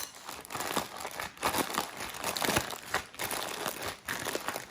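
Plastic crinkling and rustling in irregular strokes as marinated chicken pieces are squeezed and mixed inside a closed plastic bag.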